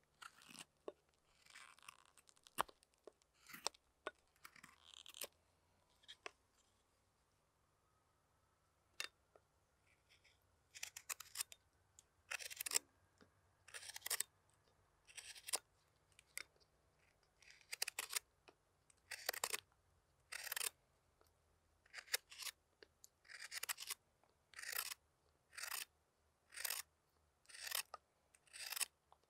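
Hook knife slicing shavings from the bowl of a wooden spoon: short, crisp cutting strokes. They are few and scattered at first, with a pause, then come about once a second through the second half.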